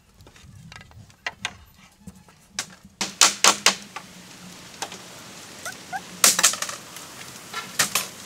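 Irregular sharp knocks and taps, loudest in a quick run of strokes about three seconds in and in another cluster a little past the middle.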